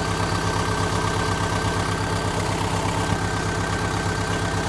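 Volkswagen Gol's engine idling steadily, with an even, regular pulsing beat.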